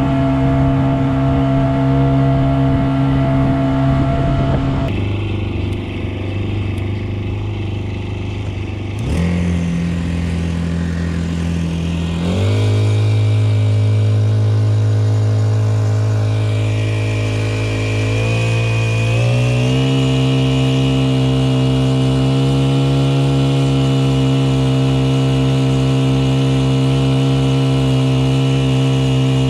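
Honda GX50 air-cooled four-stroke outboard motor running steadily under way. Its pitch shifts suddenly a few times, steps up about halfway through and again a little later, then holds at the higher pitch.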